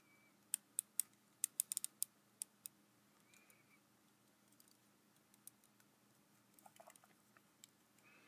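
Small sharp clicks and taps from handling a homemade action figure with clay-covered torso and wooden limbs: a quick cluster of about ten in the first two to three seconds, then a few faint scattered ones.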